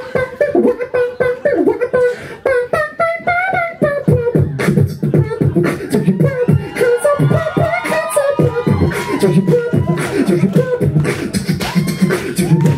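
A man beatboxing into a handheld microphone: a fast stream of mouth-made drum hits over a low bass pulse, with hummed pitched lines gliding up and down.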